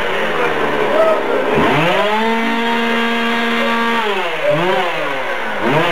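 An ATV engine revs up about one and a half seconds in, holds a steady high pitch for about two seconds, then drops back, with two short throttle blips near the end.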